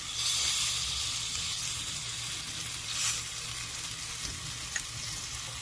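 Bone-in ribeye steak sizzling on a hot ribbed grill pan: a steady high hiss with small crackles of rendering fat. It swells just after the start and again about three seconds in.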